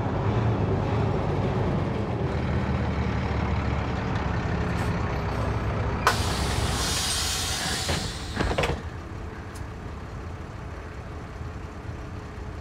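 City bus engine running as the bus pulls up, then a sharp click and a loud air-brake hiss lasting about two seconds, about six seconds in. A clunk follows, and the engine settles to a quieter idle at the stop.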